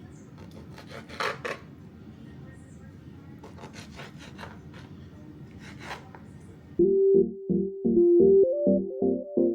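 A knife slicing and scraping through raw chicken breast on a cutting board: scattered short strokes, two louder ones a little over a second in. Near the end, loud synthesizer keyboard music with a bouncing repeated-note pattern comes in and takes over.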